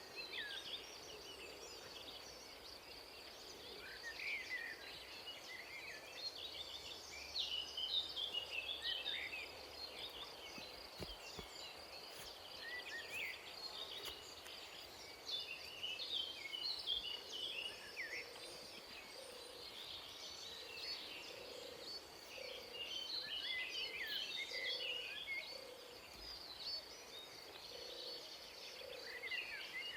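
Forest ambience: a steady high-pitched insect drone throughout, with bursts of quick chirping bird calls coming and going, and soft low calls repeating about once a second in the second half.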